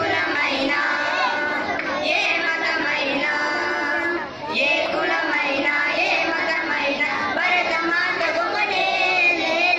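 A group of children singing a song together into microphones, with musical accompaniment and a brief break about four seconds in.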